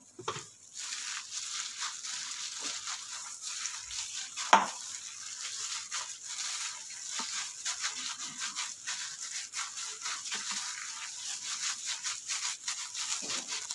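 A plastic-gloved hand kneading a chopped chicken mixture with flour in a bowl: continuous crinkling of the glove and squishing of the mince. About four and a half seconds in there is one sharp knock, the loudest sound.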